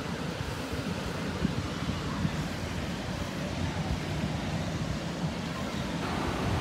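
Ocean surf washing steadily on a sandy beach, mixed with wind rumbling on the microphone, a little louder near the end.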